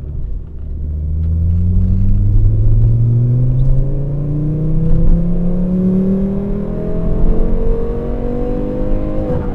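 Volvo S60 2.0T's turbocharged inline-five pulling through a straight-piped exhaust with two high-flow mufflers and no catalytic converter, its note rising slowly and steadily under a long acceleration. It levels off near the end.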